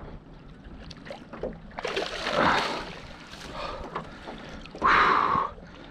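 Water splashing as a hooked flounder is scooped up in a landing net and lifted out of the water: a longer splash about two seconds in and a shorter, sharper rush of water about five seconds in.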